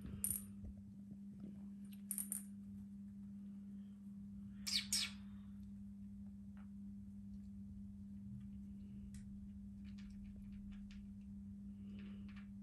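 Clear plastic cat ball toy with beads inside rattling in a few short bursts as a kitten paws it, the loudest pair about five seconds in, over a steady low hum.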